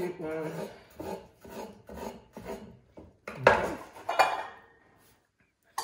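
Chef's knife cutting potato on a wooden chopping board: a run of irregular short knocks, then two louder clatters, the second with a brief metallic ring, a little after three and four seconds in.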